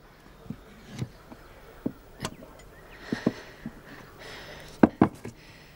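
Firewood logs knocking together as they are pulled from a stacked woodpile and set aside: a string of irregular hollow wooden clunks with some rustling between them, the loudest two close together near the end.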